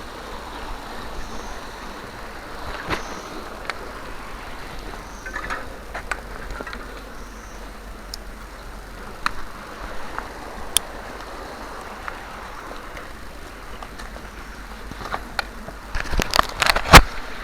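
Mountain bike rolling along a dirt trail: a steady rush of tyre and wind noise with scattered ticks and rattles from the bike, and a cluster of hard knocks near the end.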